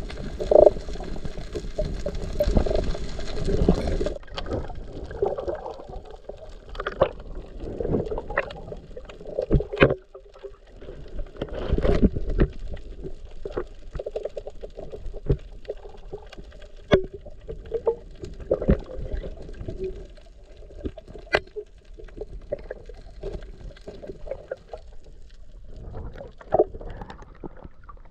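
Underwater sound picked up by a submerged camera beside a fishing net: muffled water movement with scattered sharp clicks and knocks. The sound is denser for the first four seconds, then thins to separate clicks.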